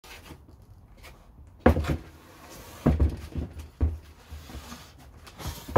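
A heavy English oak slab being set down and shifted on a workbench: several heavy wooden thumps about a second apart, with smaller knocks between.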